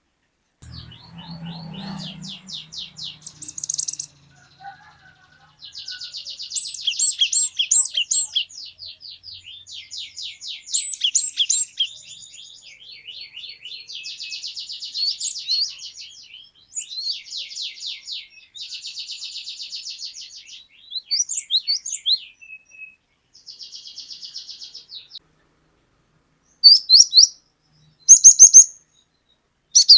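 A cinereous tit (glatik batu) in full song. It gives phrases of fast, rapidly repeated high notes with short pauses between them, then a few louder, sharp calls near the end.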